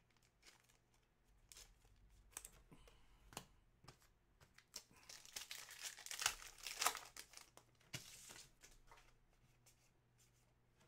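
Football trading-card pack wrapper torn open and crinkled by hand: light scattered rustles and clicks at first, then a few seconds of dense crinkling about halfway through, then softer card handling near the end.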